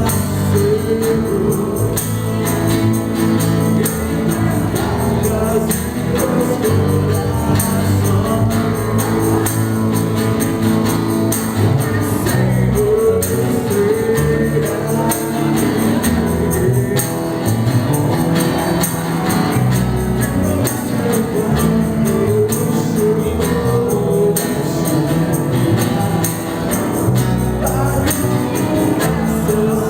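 Live acoustic band music: acoustic guitars with a steady cajón beat and a voice singing.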